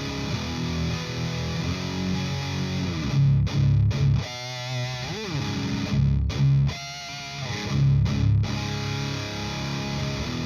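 Distorted electric guitar played through a Driftwood Mini Nightmare amp into a Mojotone ISO cabinet. It plays a riff of low chugging chords broken by short stops, with a higher note that is bent and shaken with vibrato about four to five seconds in.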